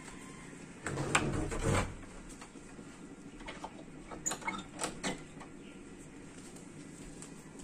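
A wooden door being closed and fastened: a loud knock and shuffle about a second in, then several short, sharp clicks and taps as it is latched.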